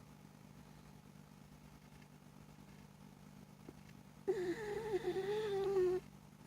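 A sleeping dog lets out one wavering, whistling snore, lasting just under two seconds, about two-thirds of the way in.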